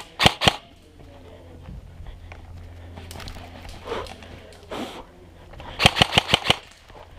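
Airsoft rifle firing: two quick sharp shots at the start, then a rapid burst of about six shots about six seconds in.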